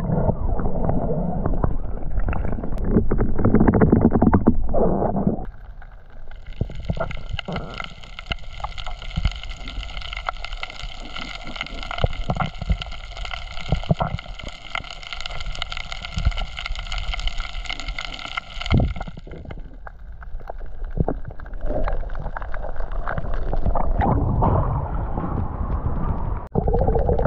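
Muffled underwater water noise as a spearfisher swims: a low rushing and gurgling with many small clicks and knocks. About six seconds in, a steady high whine of several tones sets in and runs for about twelve seconds before stopping. Near the end the sound opens up into splashing as the camera breaks the surface.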